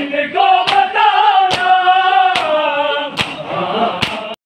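A group of men chanting a Shia noha together, with unison matam: open hands slapping bare chests all at once, one sharp slap about every 0.85 s, about five times. The sound cuts off suddenly just before the end.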